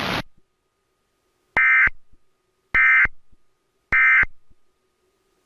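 Emergency Alert System end-of-message signal: three short, identical bursts of raspy two-tone digital data (the SAME "NNNN" end-of-message code) about a second apart, marking the close of a Required Monthly Test. A hiss cuts off just at the start.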